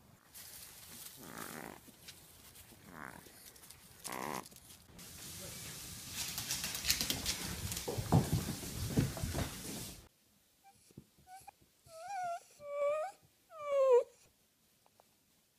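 A dachshund whining in three short wavering cries near the end, the last one falling in pitch. Before that, a loud stretch of rustling noise with low thumps.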